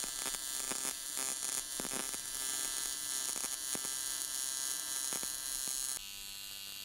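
AC TIG welding arc on aluminum buzzing steadily, with a few faint ticks. About six seconds in, the sound drops abruptly to a quieter, steadier arc hum.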